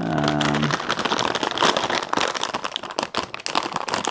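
Plastic packaging crinkling and rustling as it is handled and opened, with a brief hummed "mm" from a man's voice at the very start.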